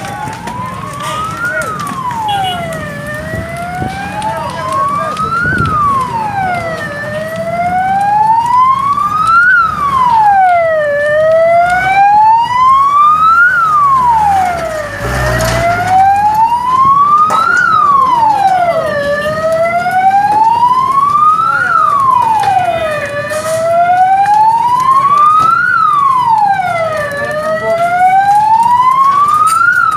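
Emergency vehicle siren wailing, its pitch sliding up and down in a slow cycle of about four seconds. It grows louder over the first several seconds.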